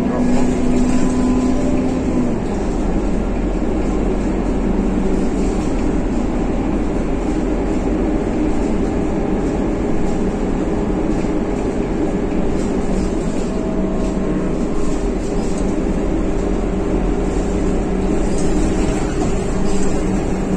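Cabin noise of a city bus under way: steady engine and road noise with a low hum, the deep rumble growing a little about two seconds in.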